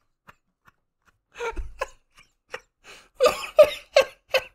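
A person laughing hard: nearly soundless at first, then short breathy bursts of laughter that come quickly about three seconds in.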